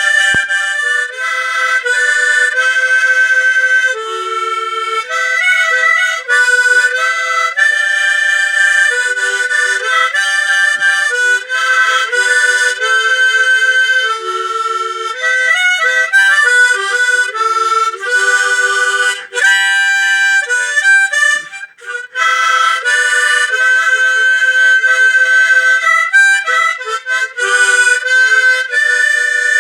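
Harmonica playing a Togolese gospel tune, a lively melody of quickly changing notes, with a brief break about two-thirds of the way through.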